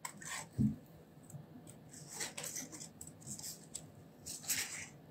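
Small scissors snipping through cardstock in a few short, quiet snips, with light paper handling as the piece is turned to follow the cut line.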